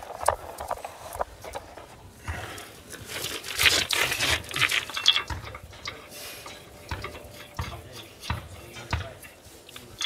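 Metal clicks and scraping as a car's rear wheel is handled onto the hub and its wheel nuts are fitted, with a denser spell of scraping a few seconds in.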